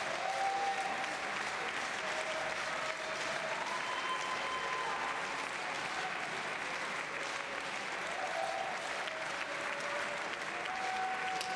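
Spectators applauding steadily, with drawn-out shouts from the crowd over the clapping.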